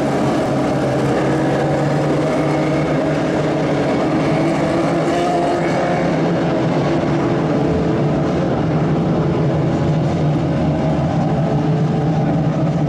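Several Lightning sprint cars racing in a pack, their engines running together, loud and steady, with pitches shifting slightly against each other.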